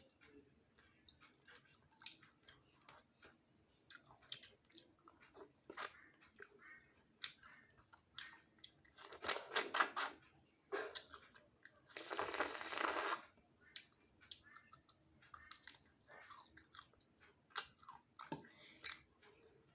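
Close-miked mouth sounds of a person chewing and eating a meal of rice and fish: irregular wet smacks and small clicks. There is a louder cluster of chewing about nine seconds in, and a short noisy rush about twelve seconds in.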